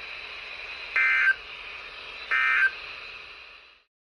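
Emergency Alert System end-of-message data bursts: two short, loud, screechy digital tone bursts about a second and a third apart over weather radio static. The bursts mark the end of the severe thunderstorm warning, and the static fades out near the end.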